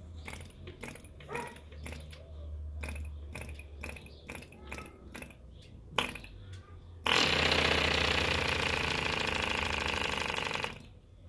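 Mills 1.3 cc model diesel engine being flicked over by hand at the propeller: a string of irregular clicks and knocks. About seven seconds in it fires and runs loudly for about three and a half seconds, then cuts out suddenly. It is running flooded, with too much fuel.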